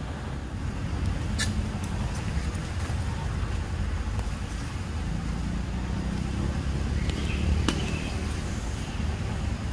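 Steady low rumbling noise with two sharp clicks, one about a second and a half in and one near the end.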